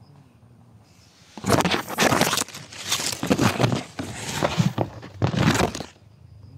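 Dry leaves and undergrowth rustling and crunching close to the microphone, in four loud bursts starting a little over a second in and stopping about a second before the end.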